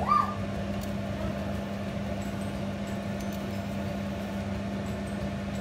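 Steady low hum of a running kitchen appliance, unchanging in pitch, over a faint hiss.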